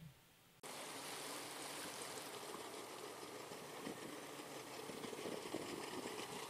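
Boat motor idling with water noise: a steady, even sound that starts abruptly about half a second in.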